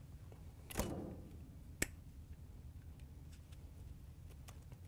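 Needle-nose pliers working spade connectors off the terminals of a refrigerator compressor start relay. There is a short scraping click about a second in and a sharp click a second later, then a few faint ticks.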